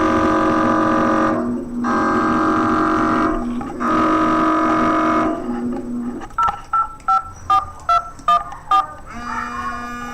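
Emergency Alert System-style electronic alert tones: three long buzzy tone bursts with short gaps, then a quick run of about eight beeps, then a new steady tone near the end.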